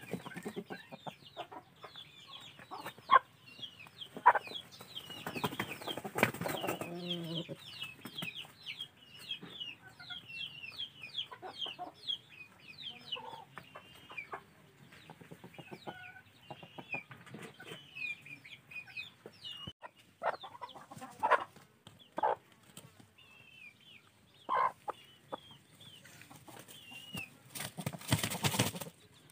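Kampung chickens: a rooster mounting a hen, with wings flapping loudly near the end and a noisy scuffle with a low squawk about six seconds in. A few sharp clucks come through, over a near-continuous run of high, quick peeping from young chicks.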